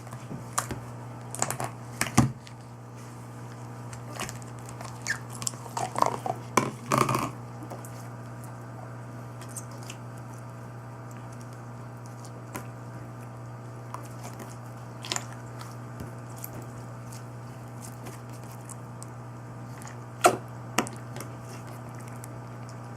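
Homemade borax-and-glue slime being squeezed and played with by hand, giving short wet squelches and pops. Most come in the first several seconds and a few more follow later, over a steady low hum.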